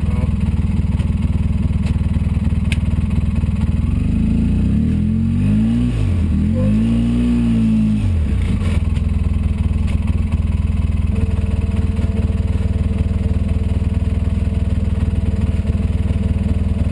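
Polaris RZR 800 side-by-side's twin-cylinder engine running steadily at low speed. About four seconds in it revs up and back down twice, then settles again.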